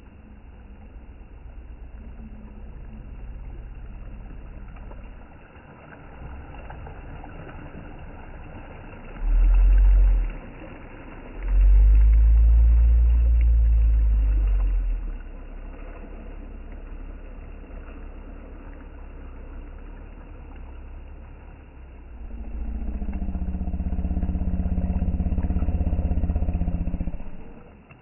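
Wind buffeting the microphone in low, rumbling gusts, loudest about a third of the way in. Near the end a motor engine runs steadily for several seconds, then stops.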